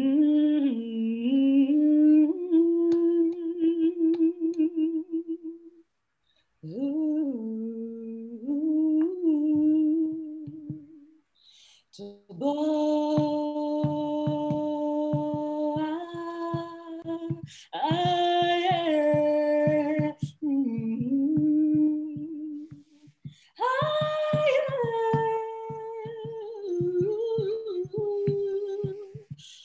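A woman humming and singing a slow melody alone, unaccompanied, in long held notes, with short breaks for breath about six and eleven seconds in.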